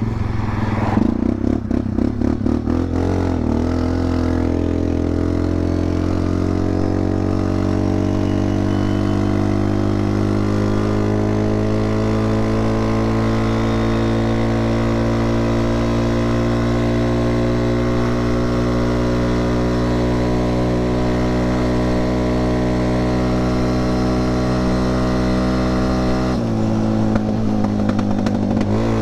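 Linhai 400S Dragonfly ATV's single-cylinder engine running under way through an aftermarket imitation Akrapovic exhaust. It pulses unevenly for the first few seconds, then its note climbs slowly and steadily as the ATV gathers speed, and it shifts abruptly near the end.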